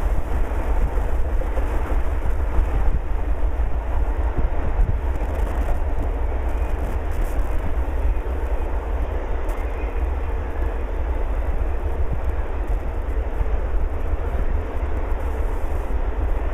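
Doublestack container train's well cars rolling past: a steady rumble and clatter of steel wheels on the rail, with no change through the stretch.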